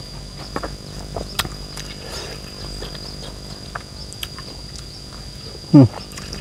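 A wooden stick scraping and clicking against a bowl while a man chews, over a steady high insect whine. Near the end a short, loud vocal hum from the man.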